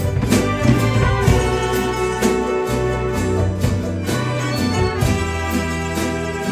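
Instrumental church music with a steady beat, about two percussive hits a second over sustained chords and a bass line.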